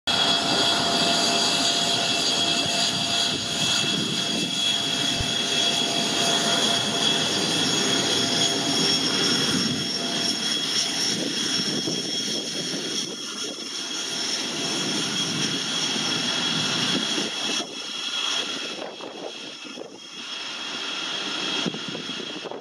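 Dassault Falcon 50's three Honeywell TFE731 turbofan engines running at idle as the jet taxis: a steady high whine over the rush of the exhaust. It eases off slightly over the last few seconds.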